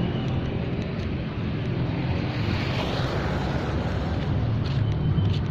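Steady wind buffeting the microphone over a low, even vehicle rumble.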